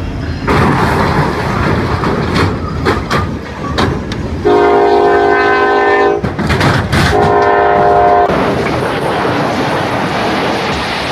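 Freight train colliding with a tractor-trailer at a road crossing: clattering and crunching knocks, then the locomotive's air horn sounding two long blasts. A steady rushing noise follows.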